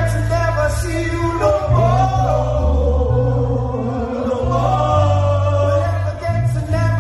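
Men singing live into microphones over amplified music with a heavy bass line.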